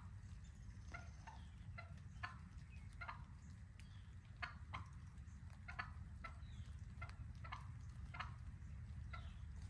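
Wild turkey hen clucking: short, sharp single notes repeated irregularly, about one or two a second, faint over a low steady rumble.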